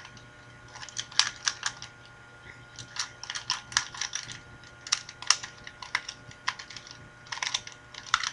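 A 2x2x2 Rubik's Cube being turned by hand: its plastic layers click and clack in quick runs of turns, with short pauses between the runs.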